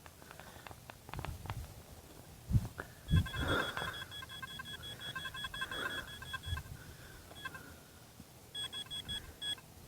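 Two dull thumps, then a metal detector's rapid pulsed electronic beeping for about three and a half seconds, stopping and starting again shortly before the end.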